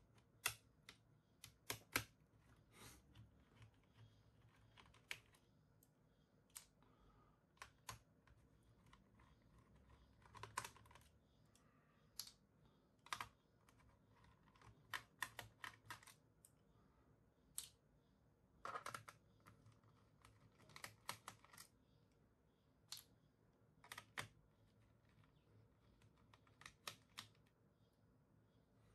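Faint, irregular clicks and taps of a small screwdriver driving screws into a laptop's plastic back cover, with small clusters of clicks here and there.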